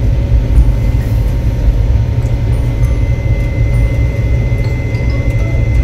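Steady low rumble of a running passenger train heard from inside the coach, with a faint steady high tone above it and a few light ticks.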